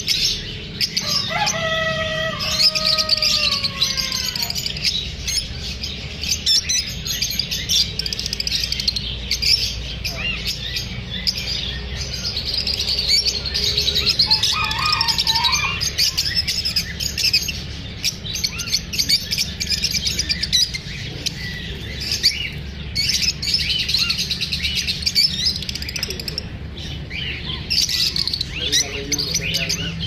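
A flock of caged lovebirds chattering, with quick, high chirps overlapping all through. About a second in, a longer falling call with several harmonics stands out for a couple of seconds. A steady low hum runs underneath.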